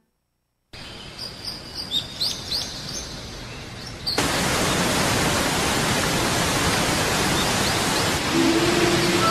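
Cartoon nature ambience: birds chirping over a soft hiss, then, about four seconds in, the steady rushing of a waterfall that is louder and drowns the birds. A held musical tone comes in near the end.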